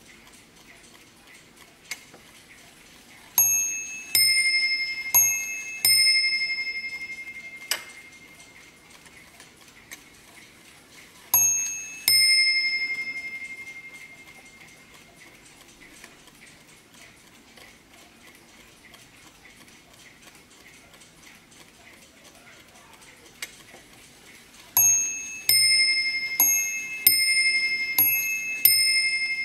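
Warmink Dutch mantel clock ticking while its minute hand is turned by hand, with a few mechanism clicks. The striking trips and strikes ding-dong on its two bells, a high and a low note alternating, each strike ringing on. There are about four strikes some three seconds in, a single ding-dong pair near the middle, and a longer run of strikes near the end.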